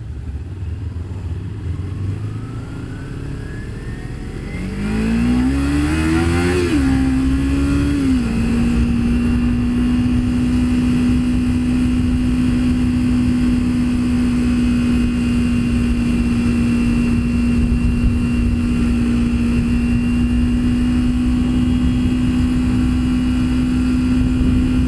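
Kawasaki Ninja 300 parallel-twin engine accelerating: its pitch rises about five seconds in, dips briefly near a gear change, then holds one steady note at cruising speed for the rest of the time, over a low rumble of road and wind noise.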